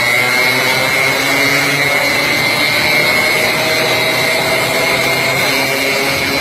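Small motorcycle engines running steadily at cruising speed, with a steady high whine over the engine note.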